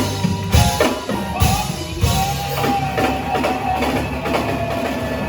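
Live band playing an instrumental passage: drum kit hits in the first second and a half over a steady bass line, then a held melodic note carries on from about two seconds in.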